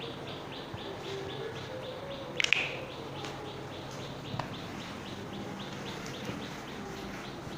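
A small bird chirping steadily in the background, about three short chirps a second, with one louder call about two and a half seconds in.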